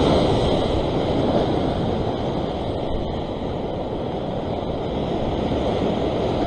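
Ocean surf washing over a rock ledge: a steady rush of churning whitewater, with wind on the microphone.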